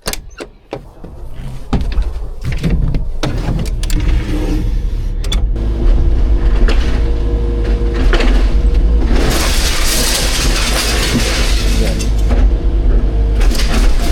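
Excavator's diesel engine running, building up over the first two seconds, with scattered knocks and clatter and a loud stretch of crackling, crunching noise about nine seconds in.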